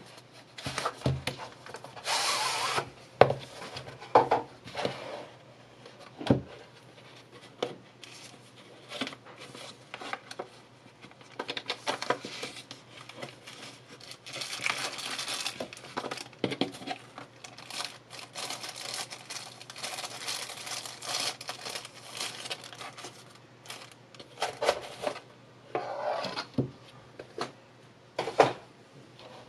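Unboxing handling noise: a cardboard knife box slid and opened, rubbing and scraping, with plastic wrap crinkling as a chef knife is unwrapped, and scattered taps and knocks of the box and lid. A sharp knock near the end as the knife is set down on the table.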